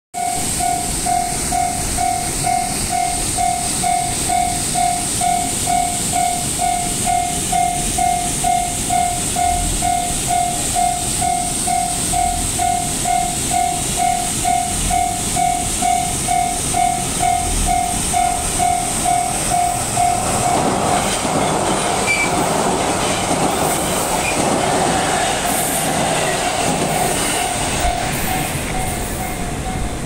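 Japanese level-crossing warning bell ringing steadily at about two strikes a second. From about two-thirds of the way in, the running noise of a six-car JR East E721/701 series electric train builds as it approaches, nearly covering the bell.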